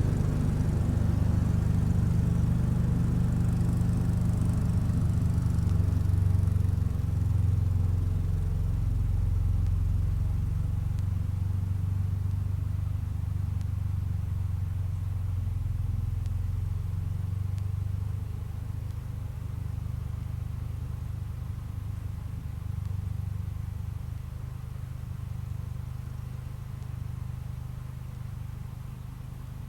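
1975 Case 224 garden tractor's engine running steadily, gradually fading over the stretch.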